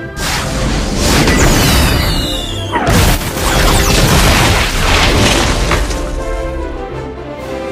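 Explosion sound effects: a blast right at the start, then a falling whistle and a second, louder blast about three seconds in that rumbles on and dies away after a few seconds, with music underneath.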